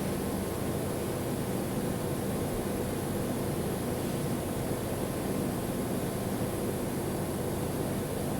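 Steady hum and hiss of welding equipment running, even and unchanging throughout.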